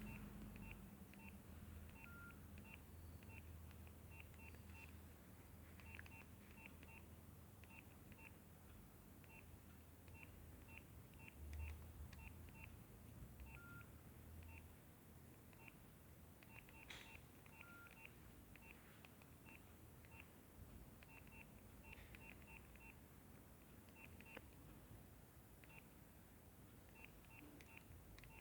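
Nokia 6070 mobile phone ringtone playing faintly through the phone's speaker: clusters of short high beeps at a steady pitch, repeating in an uneven rhythm over a low hum.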